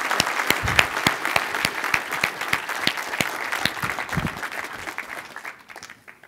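A crowd applauding. The clapping gradually thins and dies away just before the end.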